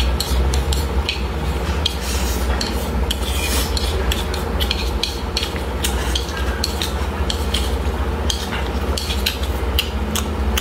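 Wooden chopsticks scraping and clicking against a bowl in quick, irregular strokes as the last rice is shoveled into the mouth, over a steady low hum.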